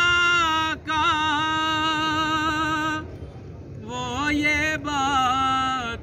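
A man singing an Urdu naat, drawing out a long held note and then a winding, ornamented phrase after a short breath about three seconds in.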